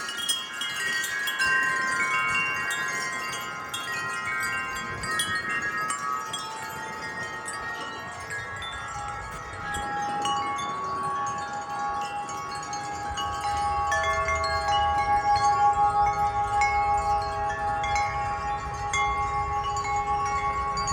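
Several hanging wind chimes ringing in gusty wind, many overlapping ringing notes. About halfway through, lower, louder notes take over and hold. Low wind rumble on the microphone runs under the second half.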